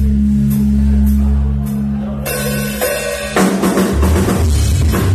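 Live rock band playing loud: held low bass and guitar notes with light drumming. About two seconds in the drums and cymbals crash in, and a second later the full band drives on with heavy bass drum and snare.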